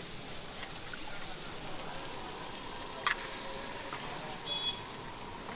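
Steady street background noise, with a single sharp click about three seconds in and a short high beep a little later.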